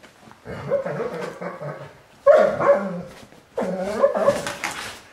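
Saarloos wolfdogs barking and whining as they wrestle in play, in three bouts of about a second each.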